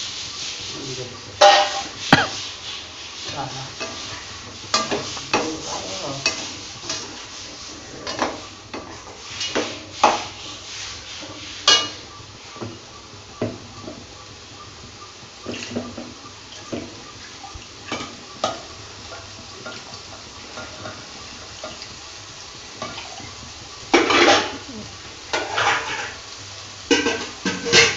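A slotted metal ladle knocking and scraping against a large metal pan as diced potatoes and carrots are stirred, in irregular clatters with a quick run of knocks near the end.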